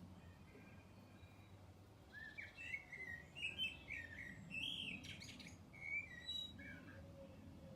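Small birds chirping and twittering, faintly: a run of short, quick warbled notes that begins about two seconds in and fades near the end.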